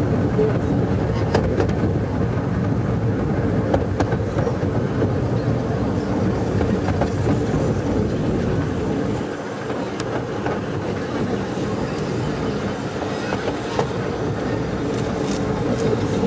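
12¼-inch gauge miniature steam train running along its track, a steady rumble of wheels on rail with occasional sharp clicks.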